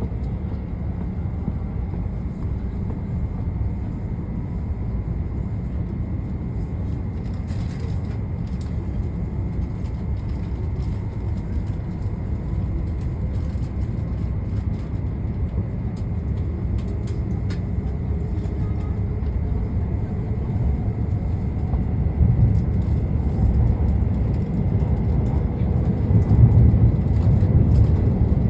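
Cabin noise of an E2 series Shinkansen pulling out and gathering speed, heard from inside the passenger car: a steady low rumble that grows gradually louder, with a faint steady high tone over it.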